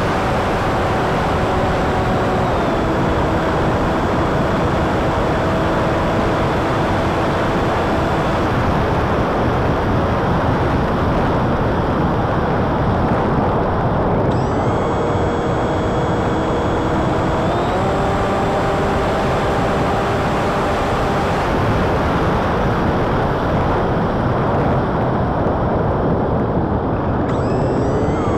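Brushless motor (Emax 2207, 1900 kV) spinning a 7x6 folding prop, heard from a camera aboard the flying wing: a steady whine that shifts up and down in pitch in steps several times with throttle changes. A strong, even rush of wind noise runs underneath it.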